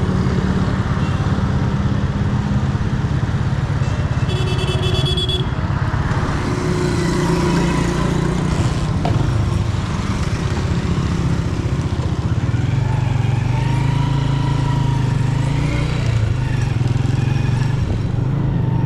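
Honda CG 125's single-cylinder four-stroke engine running steadily while riding, with wind and road noise over it. A brief high-pitched tone sounds about four seconds in.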